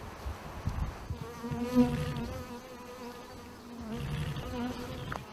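Swarm of honeybees buzzing as they defend their hive against a raiding bear: a steady drone that sets in about a second in. Some low dull thuds lie underneath.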